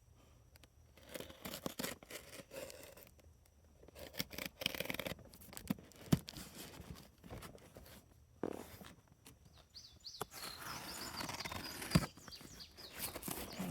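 Packing tape being torn and peeled off a cardboard parcel, with cardboard scraping and rustling in irregular bursts and clicks; the tearing and rustling run on steadily from about ten seconds in.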